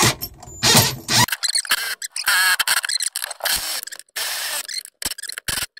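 Cordless drill-driver with a socket spinning a nut down onto a through-bolt, run in several short bursts with brief stops between them.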